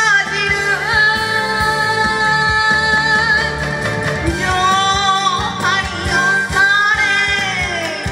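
A woman singing an enka song into a microphone over instrumental accompaniment, holding one long note from about a second in, then singing on into further phrases.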